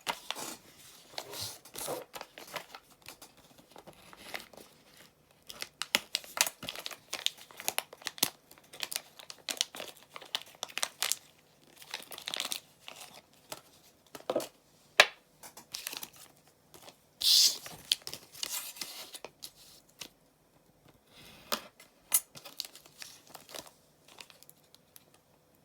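Plastic packaging crinkling and tearing as it is handled and opened, with irregular rustles and sharp crackles.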